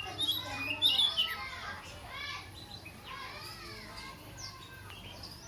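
Sooty-headed bulbul singing sharp, rapid chirps and whistles, loudest about a second in, in song it has picked up from a neighbouring oriental magpie-robin. Children's voices carry on in the background throughout.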